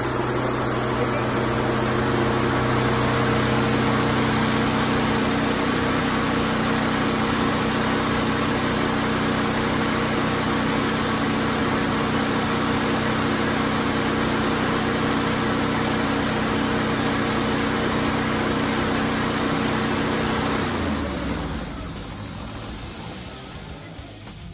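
Wood-Mizer portable sawmill engine running steadily, then winding down in pitch and fading away near the end as it is shut off.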